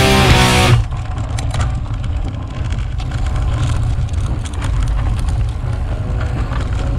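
Rock music cuts off about a second in, leaving wind buffeting the microphone and the rattling and clicking of a bicycle being ridden.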